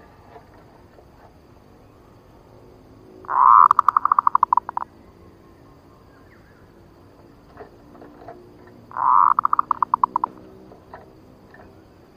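Zebra dove (perkutut) cooing twice, each song a drawn-out first note running into a quick string of short, clipped coos. It is a male's luring call, the kind used to draw a rival male dove in.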